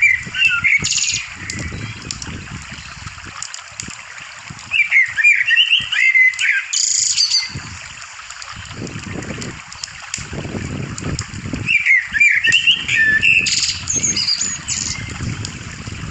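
Wild birds singing: a short burst of chirping notes comes three times, about six seconds apart, over a changing low rumbling background.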